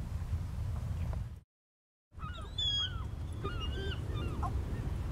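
A juvenile bald eagle calling: a run of short, high, squeaky whistled notes in quick succession, starting about two and a half seconds in, over a low steady rumble. Before the calls the sound cuts out briefly.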